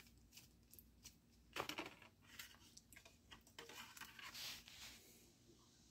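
Faint rustling and scraping of a cardboard CD sleeve being handled and a CD slid out of it, with a few light clicks.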